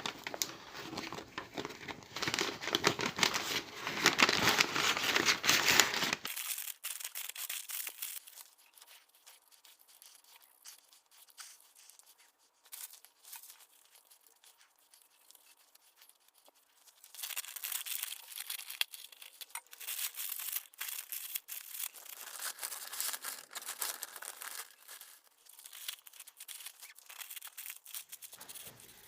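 Scraping and rustling from hand work, dense for the first six seconds, then scattered clicks, and a busier stretch of scratchy rubbing about two thirds of the way in.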